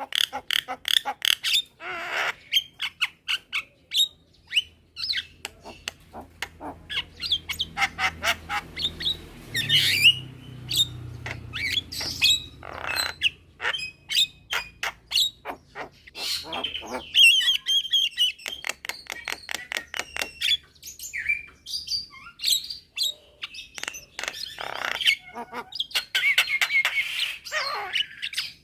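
Javan mynas calling: rapid runs of sharp clicking notes mixed with harsh squawks, a few louder calls standing out about ten seconds in, in the middle and near the end.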